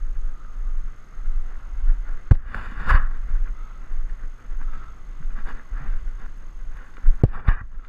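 Sharp pocks of a tennis ball on a racket and the hard court: one a little over two seconds in with a duller knock just after, and a quick pair near the end. A steady low rumble of wind on the microphone runs underneath.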